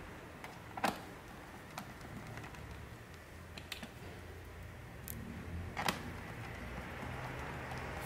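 A few scattered light clicks and taps, the loudest just under a second in and around six seconds, with soft handling noise: a hand working screws and a screwdriver on a laptop's plastic bottom cover.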